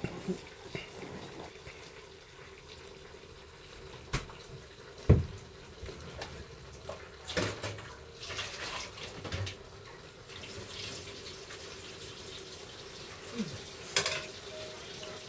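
Kitchen work at the cooking pot: a steady watery hiss with scattered knocks and clinks, the loudest knock about five seconds in and another near the end.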